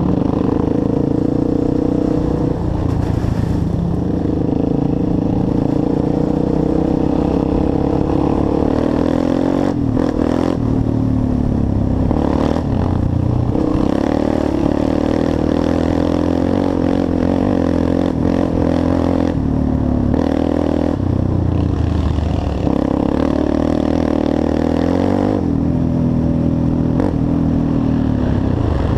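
Sport quad (ATV) engine running under load while riding, its pitch rising and dropping several times with throttle and gear changes, with clatter from the rough ground.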